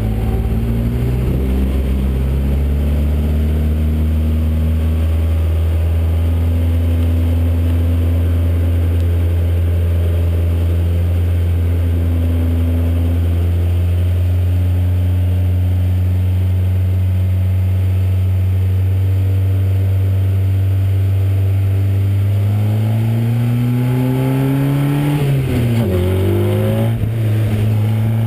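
Formula Basic single-seater race car engine heard from onboard at speed, holding a steady high note for most of the time. Near the end the pitch climbs for a few seconds, then dips sharply and jumps back.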